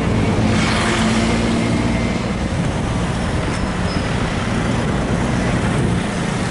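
Road traffic: engines of vehicles running and passing on the street, a steady low hum with traffic noise.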